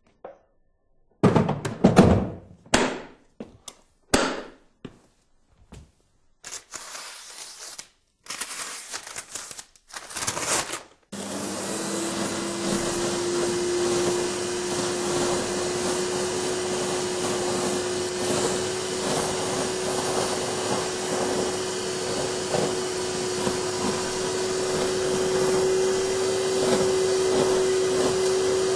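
A few loud knocks and thunks, then short rushes of noise, before a Nilfisk Attix 12 XtremeClean wet/dry vacuum starts about a third of the way in. Its motor spins up with a briefly rising hum and settles into a steady run over a broad rush of air.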